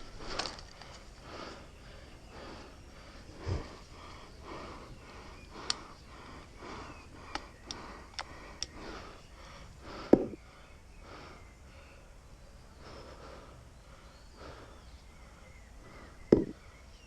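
Breathing and movement noises, with about five sharp clicks in quick succession between six and nine seconds in, and two louder short thumps, about ten and sixteen seconds in.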